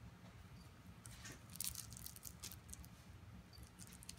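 Faint crackling, clicking and rustling as a kitten and a poodle play-fight on a fabric couch. A quick run of crackles starts about a second in and lasts a second or so, with a few more clicks near the end.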